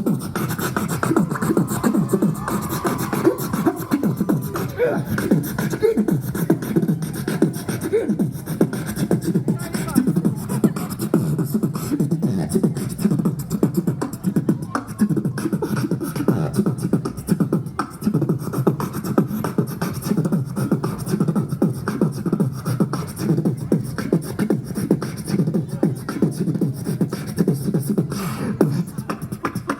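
Live human beatboxing: a continuous, fast run of mouth-made drum beats and bass sounds.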